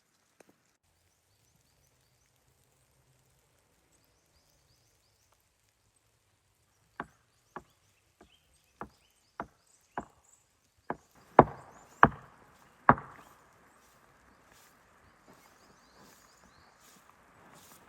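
Wood being chopped: about ten sharp strikes that come faster and louder about seven seconds in, the last three the heaviest, followed by a faint rustling.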